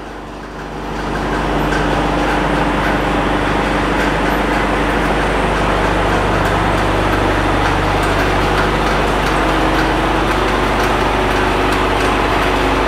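Machinery on a charcoal briquette production line running with a steady drone and hum, growing louder about a second in and then holding level.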